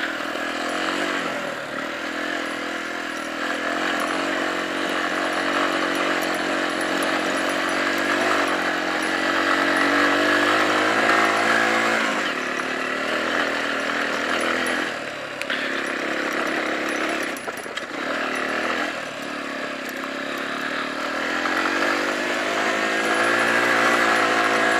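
Small 9-horsepower Jialing motorcycle engine running without a break, its pitch rising and falling with the throttle and dipping a few times past the middle.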